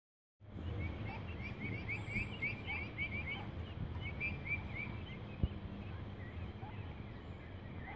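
Mallard ducklings peeping in quick runs of short chirps, busiest in the first half and sparser later, over a low steady rumble. A single sharp knock about five and a half seconds in.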